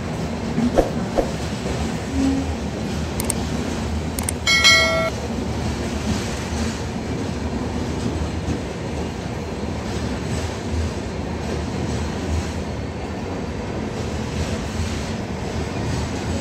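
LHB passenger coaches of a departing express rolling past, a steady rumble of wheels on rail with clickety-clack over the joints. About four and a half seconds in a brief high tone sounds for about half a second.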